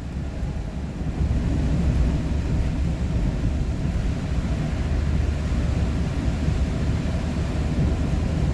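Steady low rumble of a vehicle driving on the road: engine and tyre noise heard from inside the cab, rising slightly about a second in and then holding steady.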